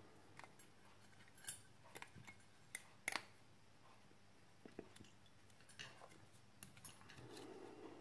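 Near silence with a few faint, sharp clicks and taps as a phone battery and the bare circuit board of a Samsung B355E are handled and the battery is fitted to the board.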